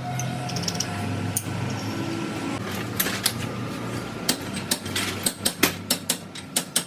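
Sharp metallic clicks and taps from work on a truck gearbox, coming faster in the second half, about three or four a second near the end, over a steady low hum.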